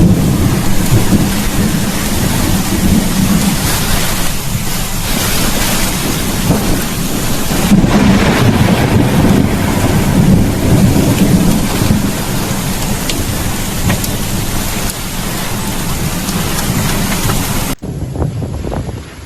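Heavy rain driven by strong gusty wind, with low rumbling thunder, during a violent thunderstorm squall. About 18 seconds in the sound cuts abruptly to a quieter stretch of wind buffeting the microphone.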